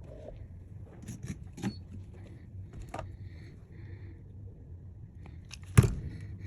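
Small clicks and taps of hand tools being handled at a repair bench over a steady low hum, with a sharper knock near the end.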